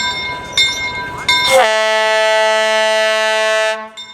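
Train running with regular clicks, then about one and a half seconds in a steam locomotive whistle, likely that of East Broad Top 2-8-2 No. 16, blows a long, steady, loud blast that breaks off near the end before sounding again.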